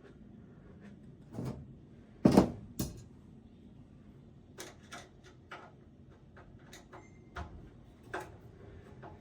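Hands working on a desktop PC case while pulling out its power supply: a softer knock, then a loud double knock of metal parts about two seconds in, followed by a string of small clicks and taps like screws and panels being handled.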